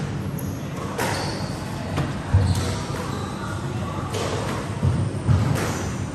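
Squash rally: the ball cracks off racquets and the walls about once a second, with low thumps of footsteps on the wooden court floor and brief high shoe squeaks.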